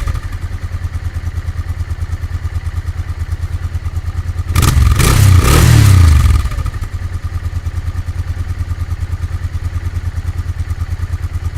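Honda NTV650's V-twin engine breathing through a Motad aftermarket exhaust, idling with an even pulsing beat. It is revved once about five seconds in, the pitch rising and then falling back to idle.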